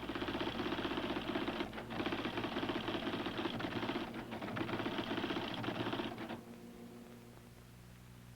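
Automatic typewriter typing at high speed: a fast, continuous chatter of key strikes with two brief breaks, stopping about six seconds in.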